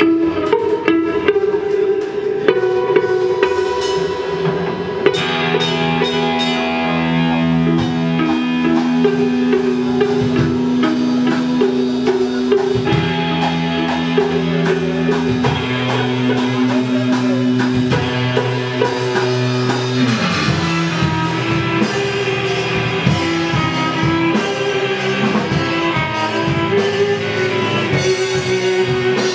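Live instrumental rock: an amplified electric guitar holding long, droning notes over a drum kit, with the drumming and cymbals getting busier about five seconds in.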